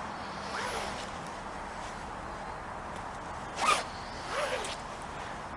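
Jacket zip being pulled up and down in a few quick strokes, each sweeping up or down in pitch. The sharpest stroke comes about three and a half seconds in, with another just after it.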